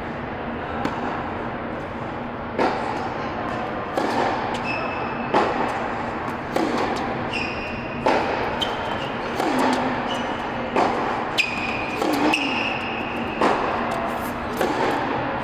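Tennis balls struck by rackets and bouncing during a baseline rally, a sharp pop about every second and a half, ringing in a large hall. Short squeaks of tennis shoes on the hard court come between the shots.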